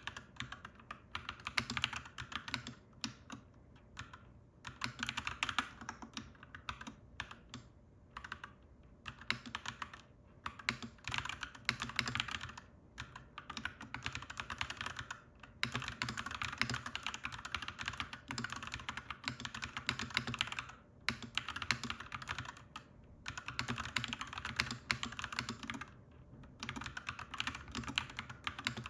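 Clacky mechanical keyboard being typed on steadily, in fast runs of key clicks broken by short pauses.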